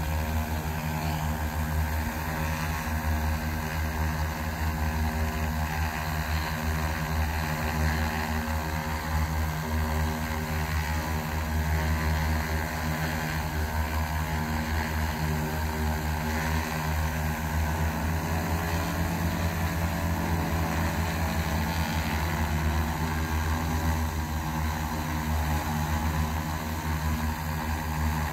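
X1400 industrial multirotor drone hovering, its propellers giving a steady, loud drone made of many layered pitched tones. The tones shift slightly about eighteen seconds in.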